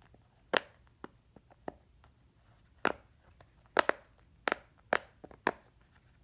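Bubbles of a large silicone pop-it fidget toy being pressed through one after another: sharp, irregularly spaced pops, about a dozen, some much louder than others.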